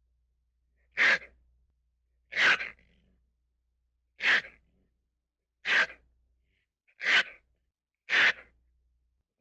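Sound-effect vocalisations for the small tyrannosauroid dinosaur Moros intrepidus: six short, breathy bursts, each a fraction of a second, spaced about one to two seconds apart.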